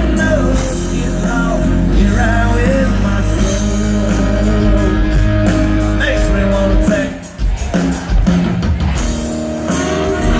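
A rock song with singing over a band, dipping briefly about seven seconds in.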